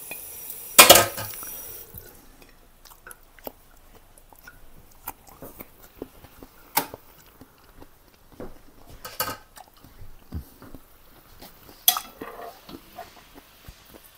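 Metal utensils clanking and clinking against a pan of simmering asparagus. There is one loud clank with a short ring about a second in, then scattered lighter taps and clinks, with sharper knocks a few seconds apart.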